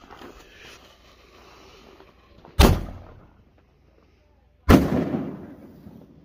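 Two loud firework bangs about two seconds apart, each dying away quickly: an aerial shell fired from its launch tube, then bursting overhead.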